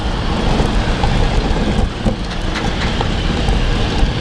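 Steady low rumble with wind noise on the microphone while cycling, with scattered light clicks; the rider thinks he hears a train.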